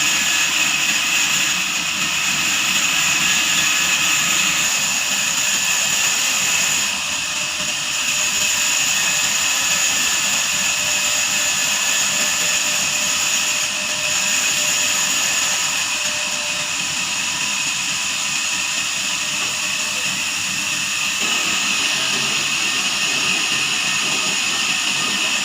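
Band sawmill running, a steady high-pitched whine with hiss that shifts slightly in level every few seconds.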